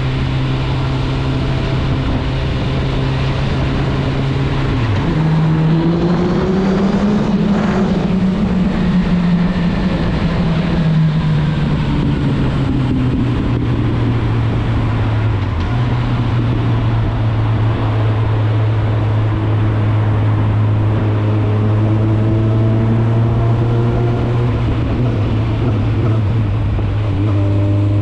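Suzuki GSF 650 Bandit's inline-four engine through an Akrapovic exhaust, under way. The note holds steady, rises about five seconds in and eases back, then drops to a lower steady note around the middle, with wind noise underneath.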